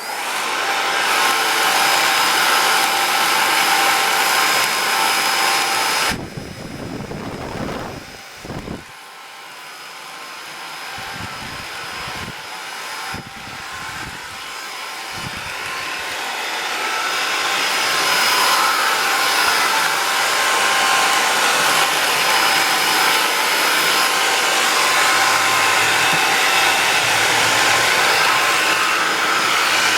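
Cordless vacuum cleaner switched on and running with a steady high-pitched whine. About six seconds in it drops quieter, with a few low knocks, then slowly builds back to full strength over the next ten seconds or so.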